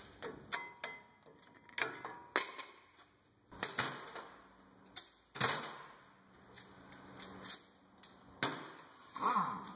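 Irregular clicks, clanks and short rustles of hand tools being picked up and handled at a metal tool cart.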